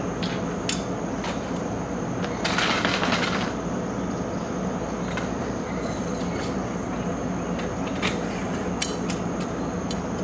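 Handling noise from setting up a canvas truck awning: scattered clicks and knocks from its support poles and a brief rush of canvas rustling about two and a half seconds in, over a steady outdoor rumble.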